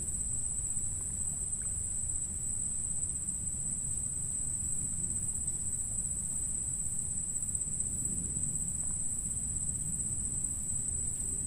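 Insects chirring in one steady high-pitched drone, over a low steady rumble.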